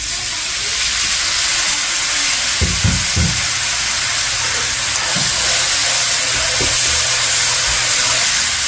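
Water hitting hot oil and curry masala in a metal karahi, a steady loud sizzling hiss as it bubbles and is stirred with a metal spoon. A few low thumps about three seconds in.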